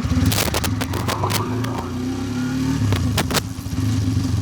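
Hero Xtreme 160R 4V's single-cylinder engine running at idle, with a series of sharp clicks and knocks in the first second and a half and again about three seconds in.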